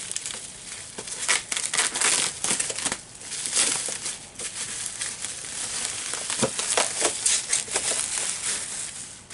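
Bubble wrap and plastic packing wrap crinkling and rustling as they are pulled off a packed item by hand, an irregular run of crackles.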